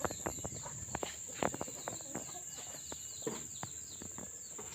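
Rural outdoor ambience: a steady high-pitched insect drone, birds chirping, and scattered short clicks and taps.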